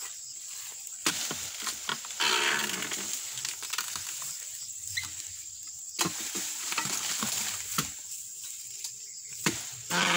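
Scattered sharp knocks and a brief rustle as a long-handled oil palm harvesting chisel on a metal pole is worked up among the palm fronds, over a steady high insect drone.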